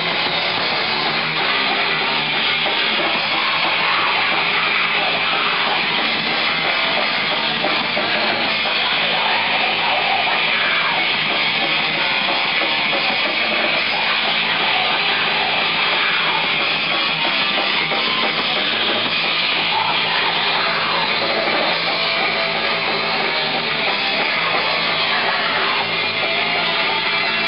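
Metal band playing live and loud: distorted electric guitars driving over a full drum kit, dense and unbroken.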